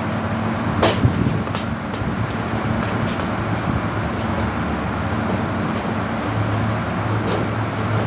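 Steady low machine hum, with a few sharp clicks and rattles of thin metal flashing sheet being handled: two close together about a second in, one near the end.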